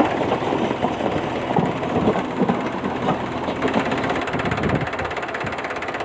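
Toy tractor running with a steady, fast, engine-like chugging, with irregular knocks and clatter over the first five seconds or so as the tractor and its loaded trolley tip over on the sand.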